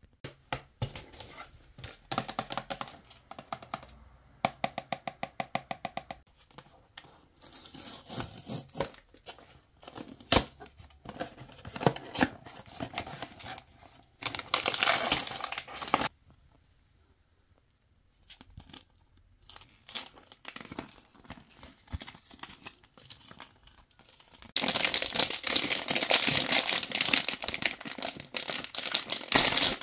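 Blind-box packaging being handled: a run of sharp clicks and taps at first, then rustling and tearing of cardboard and paper. It ends in loud, continuous crinkling of tissue paper being unfolded over the last five seconds.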